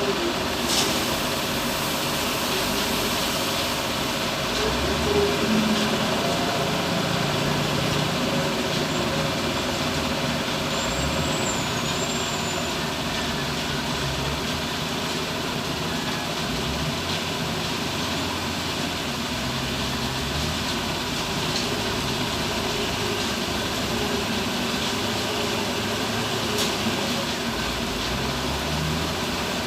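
Heavy diesel engines of construction machinery loading sand into a dump truck, running steadily while the engine note shifts up and down as the machine works. A sharp knock comes just under a second in, and another near the end.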